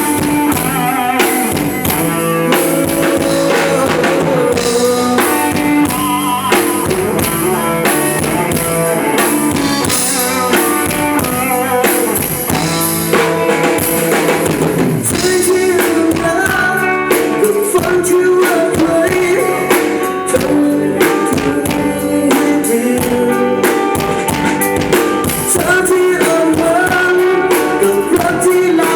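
Live band playing a rock song with drum kit, guitar and bass guitar.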